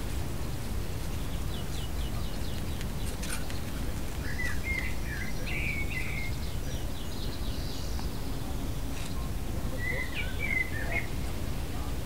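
Wind blowing, a steady low rush that buffets the microphone, with faint clicks as the flaps of a wall vent louvre shift. A bird chirps in short twittering phrases about four seconds in and again near ten seconds.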